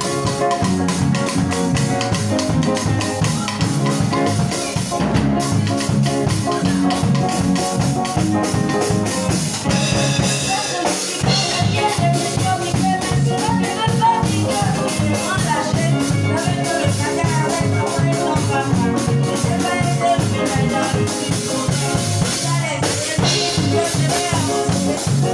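Live band music: electronic keyboards playing over a drum kit's steady beat in an up-tempo gospel song.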